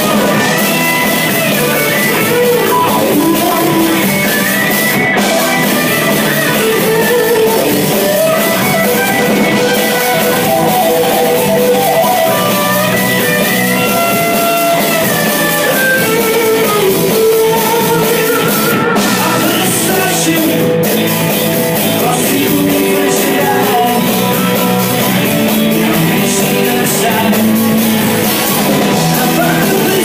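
Live rock band playing loud: electric guitars and drum kit, with a singer.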